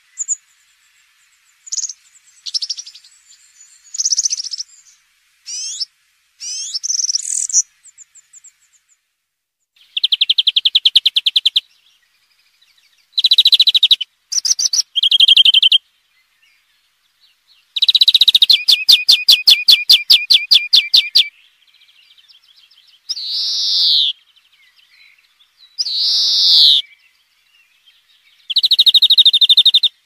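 Recorded songbird song: first a run of short, varied high phrases, then loud rapid trills and slurred phrases with short pauses between them.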